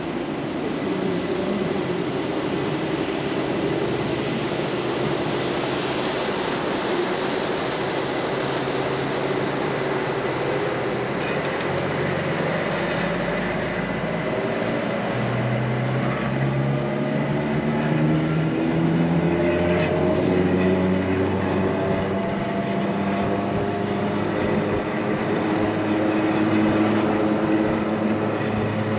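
Berner Oberland Bahn train running, heard from inside the passenger car: a steady rumble and rail noise, with the drive's whine rising slowly in pitch from about halfway through.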